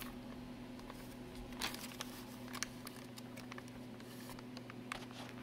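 Faint, scattered crinkling and rustling of a clear plastic bag as a CD-ROM drive is worked out of it, over a steady low hum.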